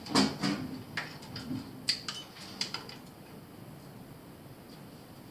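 Light clicks and taps of hand tools and wire being handled at zone valve terminals: a cluster of sharp clicks in the first three seconds, then only faint background.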